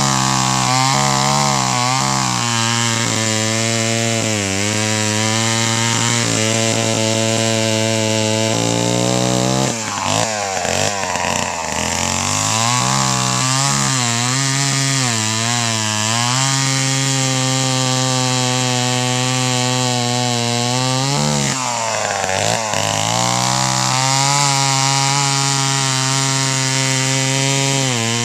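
Wizard two-stroke chainsaw running at speed and cutting through a log. The engine note holds steady under load, dipping and picking back up twice, about a third of the way in and again about three quarters through.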